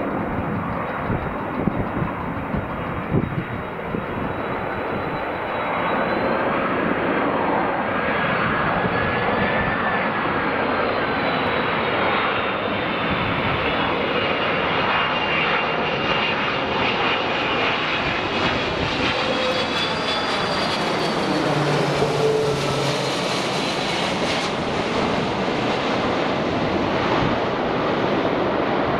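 Twin-engine jet airliner on landing approach with gear down, flying low overhead: a steady rush of jet engine noise with a thin high whine, growing as it nears and loudest as it passes over about two-thirds of the way in.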